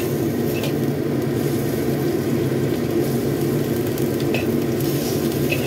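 Watercress stir-frying in a wok: steady sizzling, with a few short scrapes of the metal spatula against the wok as it is stirred.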